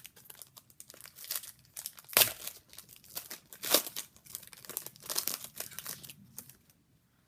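Wrapper of a hockey trading-card pack being torn open and crinkled by hand: irregular crackling and tearing, loudest a little after two seconds in and again near four seconds.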